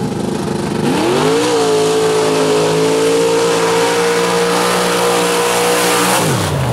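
Mud-drag vehicle's engine at full throttle on a run: the revs climb steeply about a second in, hold high and steady for about five seconds, then drop away sharply near the end.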